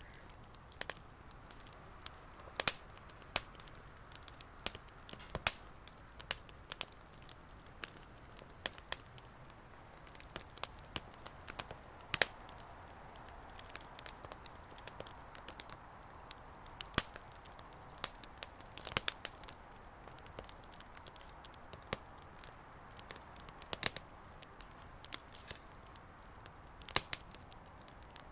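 Bonfire crackling, with irregular sharp pops over a low steady hiss.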